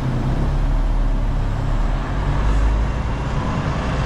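Semi-truck diesel engine running with a steady low drone, heard from inside the cab as the truck rolls slowly.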